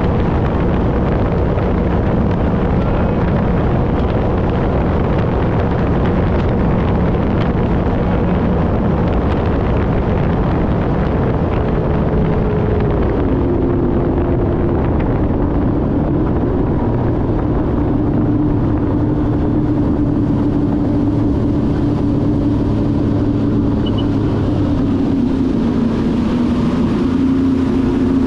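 Sea-Doo RXP-X 300 personal watercraft running at speed: its supercharged three-cylinder Rotax engine and jet drive drone steadily over rushing spray and wind on the microphone. The engine note drops in pitch in two steps, about halfway through and again near the end.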